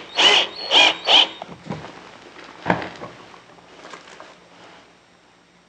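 Cordless drill driving a small screw through a figure-eight fastener into pine: three short trigger bursts of motor whine in the first second and a half as the screw is run home. A single sharp knock follows a little later.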